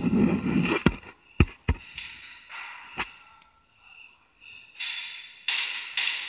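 Sharp knocks or cracks in an airsoft close-quarters game: four in the first three seconds, amid the rustle of a player moving, then bursts of hissing noise from near the fifth second.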